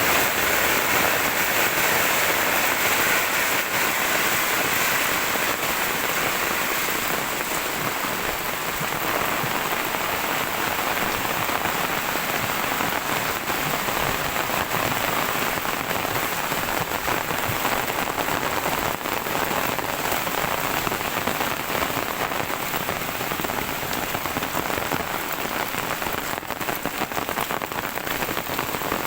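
Heavy rain falling steadily, a dense hiss of countless drops striking surfaces. It is slightly louder for the first several seconds, then eases a little.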